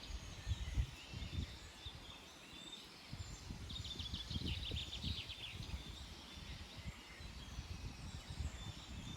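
Outdoor ambience of songbirds chirping in quick repeated series, strongest a few seconds in, over an uneven low rumble that rises and falls in gusts.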